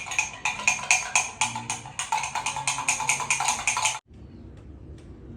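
Music with a quick, clicking percussive beat of about four to five strokes a second. It cuts off suddenly about four seconds in, leaving only faint room sound.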